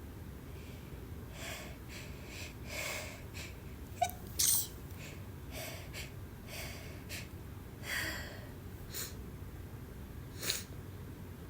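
A person sneezing. A sharp sneeze about four and a half seconds in is the loudest sound, another comes near the end, and quick breathy inhales come between them.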